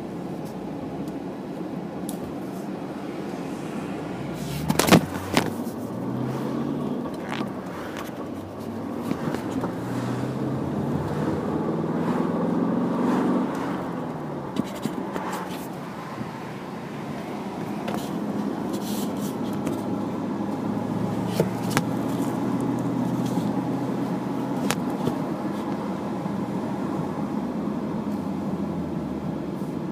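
Chevrolet Camaro heard from inside the cabin while driving: steady engine and road noise, the engine note rising as the car speeds up, falling, then rising again. A cluster of sharp knocks comes about five seconds in, with a few lighter clicks later.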